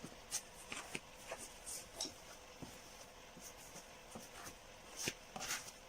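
Faint scratching and scattered light ticks, as of a tool rubbing and tapping over a plastic bumper during plastic welding.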